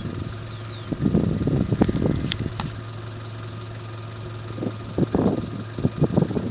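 Wind buffeting the microphone in two gusty spells, about a second in and again near the end, over a steady low hum. A few short high chirps come through early on.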